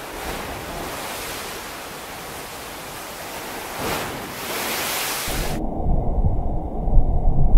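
Pool water sloshing and surging in a ship's swimming pool as the vessel rolls in heavy seas: a steady hiss of churning water that swells briefly about four seconds in as spray bursts up. About five seconds in it cuts to a louder, muffled recording of low rumbling with gusty peaks, wind buffeting the microphone as pool water crashes on an open deck.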